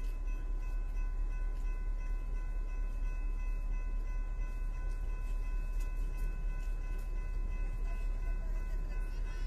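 Railroad grade-crossing warning bell ringing steadily, with a low wind rumble on the microphone.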